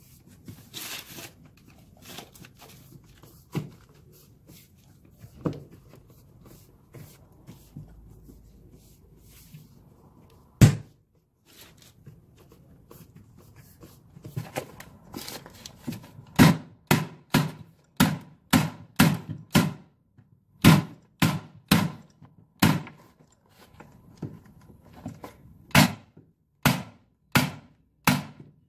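Rustling and scattered light knocks as a stair nosing strip is pressed onto the tread by hand, with one loud knock a little before halfway. From a little past halfway comes a run of sharp snaps, about two a second in groups with short pauses, from a corded electric staple gun fixing the nosing to the stair.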